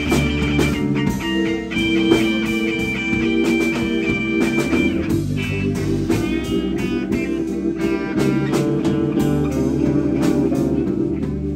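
Live blues band in an instrumental break: a Les Paul-style electric guitar plays lead over bass guitar and drums. The guitar holds long notes, then plays bent, wavering notes about halfway through.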